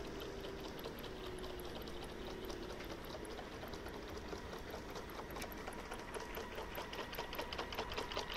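Drive mechanism of an RC catamaran's oscillating leaf-spring propulsor running, a small motor giving a rapid sewing-machine-like ticking that grows stronger in the second half, over a faint whine.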